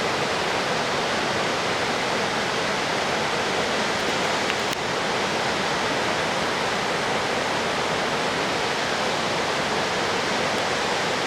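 Ausable River water rushing through the chasm, a steady, unbroken rush of falling and tumbling water.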